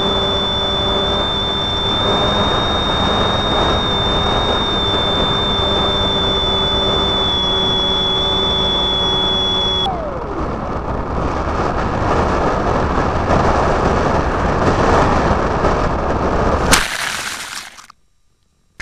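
RC flying wing's motor and propeller whining steadily, heard from a camera on the airframe. The whine cuts off about halfway, its pitch sliding down, and rushing air noise follows as the plane glides in low. Near the end comes a single loud crash as it hits the ground in the grass.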